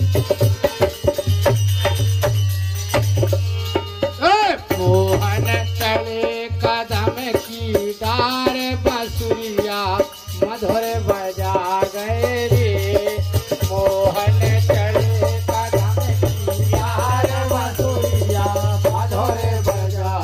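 Live Indian folk music: a harmonium with fast, rhythmic clicking of wooden clappers (kartal), joined about four seconds in by a man singing a wavering, ornamented melody.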